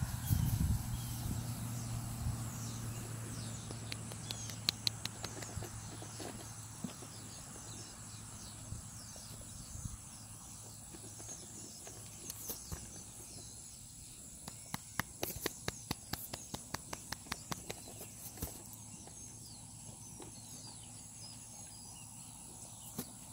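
Birds chirping in the background. A low hum fades out over the first few seconds, and a quick run of sharp clicks comes a little past the middle.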